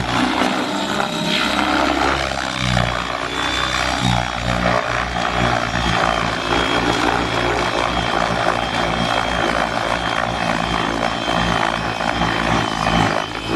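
Align T-Rex 600E electric RC helicopter flying aerobatics: a steady high whine from its motor over the rotor blades' thrum, with the low rotor sound shifting as it manoeuvres.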